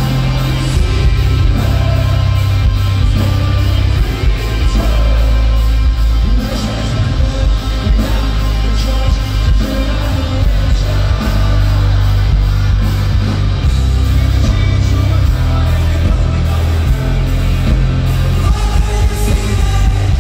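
Rock band playing live, heard from the crowd: distorted electric guitar, bass guitar and drums, with a man singing over them. The deep bass and kick drum are the loudest part.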